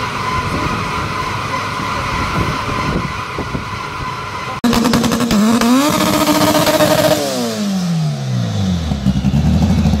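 A steady mechanical hum with a high whine, then an abrupt cut about halfway through to the tuned Audi A5's 3.0 TDI V6 diesel through a Milltek exhaust revving. It rises, holds high for about a second, then falls back to a low, steady rumble.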